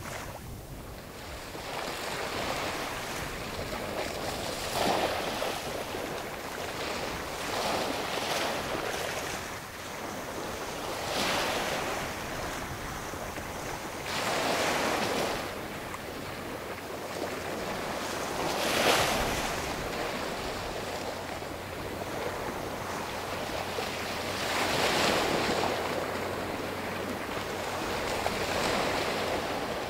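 Small waves washing onto the shore, a rush of water swelling and fading every few seconds, the loudest near the middle. Wind buffets the microphone throughout.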